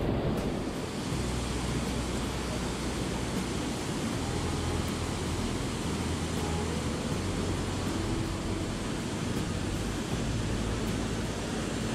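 Steady rushing of river waterfalls and cascades. Whitewater splashing eases in the first second and then settles into an even roar of falling water.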